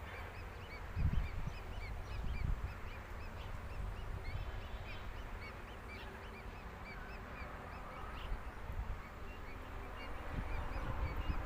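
Small birds chirping: a run of short, high chirps about three a second, thinning out after the first few seconds, over a low rumble of wind or handling noise with a couple of thumps.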